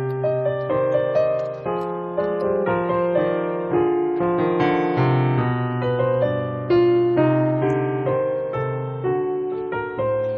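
Background piano music: a gentle melody of single notes over a bass line, each note struck and then fading.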